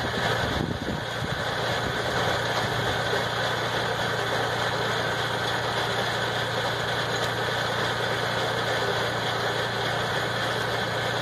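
MB trac 1000 tractor's six-cylinder diesel engine idling steadily.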